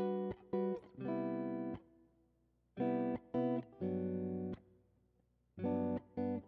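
Background guitar music: short groups of about three chords, each group followed by a pause of about a second.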